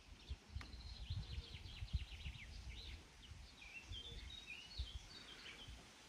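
Small birds chirping in quick, short calls, with a low, uneven rumble underneath.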